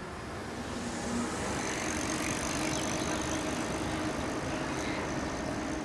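Road traffic: a steady hiss of passing cars that swells about a second in and eases off near the end.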